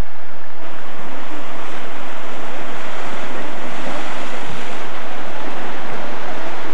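Ocean surf washing against a rocky shoreline below sea cliffs, a steady, loud rushing that swells about half a second in, mixed with wind buffeting the camcorder microphone.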